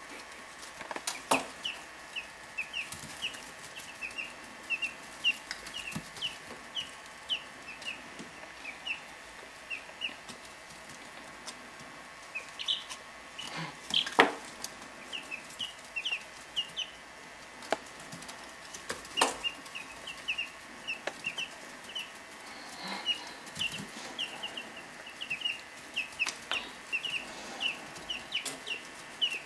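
Three-week-old chicks peeping: a steady stream of short, high chirps with brief lulls, and a few sharp knocks or scuffles, the loudest about halfway through.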